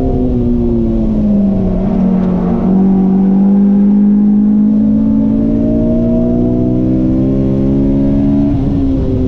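Honda K24 2.4-litre inline-four in an EG Civic, heard from inside the cabin at speed on track. The engine note falls for the first couple of seconds as the car slows for a corner, then rises steadily under acceleration for about six seconds and dips again near the end.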